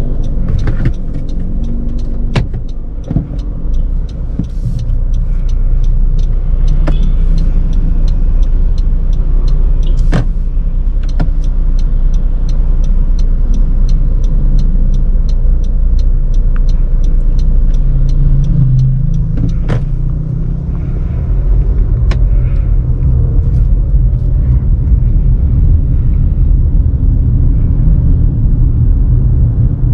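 Cabin sound of a 2018 Honda CR-V Turbo driving at low town speed: a steady low rumble of engine and tyres on the road, with many short ticks scattered through it.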